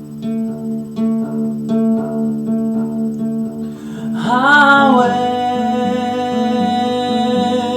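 Acoustic guitar picked in a steady, repeating pattern, with a singing voice coming in about four seconds in and holding one long note over it.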